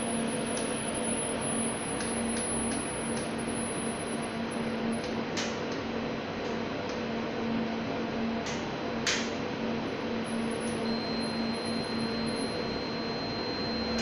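UPS running with its systems connected in parallel, giving a steady sharp hiss over a low hum, with a faint high whine and a few sharp clicks; the cause of the hiss is unknown.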